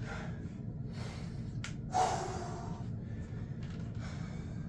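A man breathing hard and winded after a set of exercise, with a few heavy breaths, the loudest about two seconds in, over a steady low hum.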